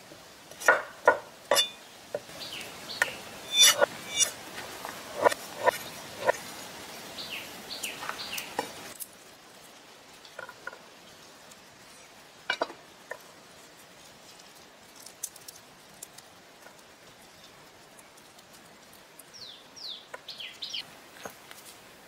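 Cleaver chopping on a wooden cutting board: about ten sharp chops in the first six seconds, then only a few scattered light taps and clicks.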